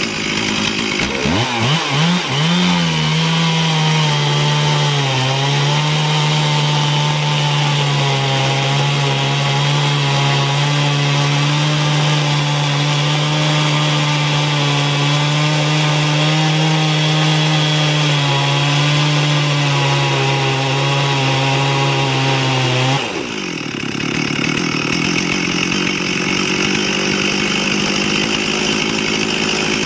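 Stihl MS 440 chainsaw in an Alaskan chainsaw mill ripping lengthwise through a southern yellow pine log: the engine revs up over the first couple of seconds, then runs at a steady loaded full-throttle pitch. About 23 seconds in the note drops abruptly, and the saw runs on lighter and steady.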